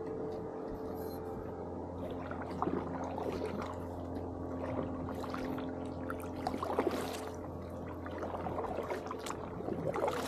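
Kayak paddle strokes: the blades dip and pull through the water in irregular splashes and drips, starting about two seconds in, over a steady low hum.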